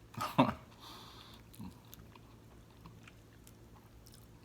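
Close-miked eating of egusi soup and fufu: a loud wet mouth noise about half a second in, then quiet chewing with small wet clicks.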